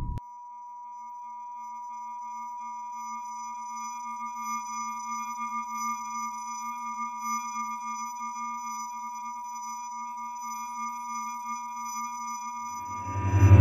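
Steady electronic tones: one clear pure tone with fainter held tones above and below it, slowly growing a little louder. Helicopter rotor noise swells back in near the end.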